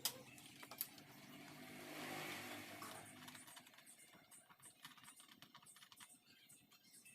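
A sharp click at the start and another just before a second in, then scattered faint clicks and ticks of small parts and tools being handled during amplifier repair work. A faint engine hum fades out over the first three seconds.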